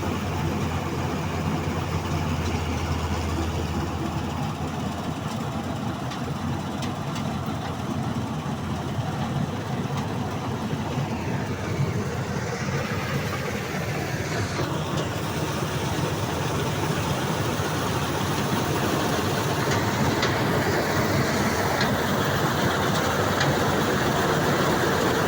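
Combine harvester's diesel engine running steadily, with machinery noise and a falling whine around the middle. It grows louder toward the end.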